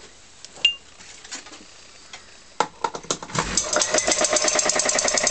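A few scattered clicks and knocks, then about three and a half seconds in the vintage Dunlop piston air compressor starts up and runs with a fast, even pulsing beat.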